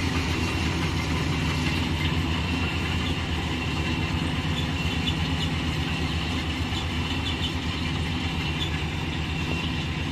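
GAM combine harvester's diesel engine running steadily, a continuous low engine drone.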